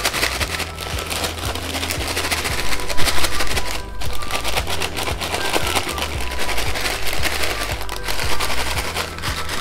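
French fries and seasoning powder being shaken hard in a paper bag: a loud, fast, continuous rustling rattle, with a brief pause about four seconds in.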